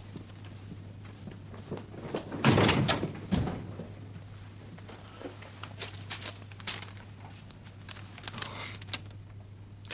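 A door shuts with a heavy thump about two and a half seconds in, followed by light, crackly paper rustling as a telegram is handled, over a steady low hum.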